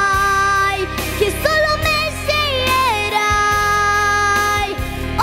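A girl singing solo into a microphone over accompanying music, holding long notes that waver and glide between pitches.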